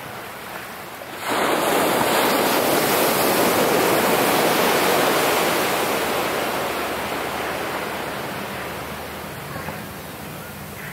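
Ocean wave breaking on the beach about a second in, its surf rushing up the shore and slowly fading over the following several seconds.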